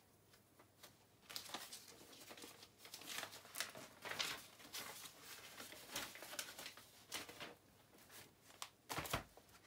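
Packaging wrappers crinkling and rustling in the hands as wrapped items are handled, in irregular crackles starting about a second in, with one sharper crackle near the end.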